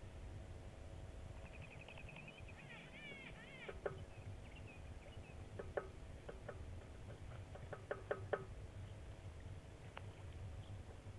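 Wild birds calling faintly: a quick run of squeaky up-and-down notes about two to four seconds in, then scattered short clucking notes, over a steady low background hiss.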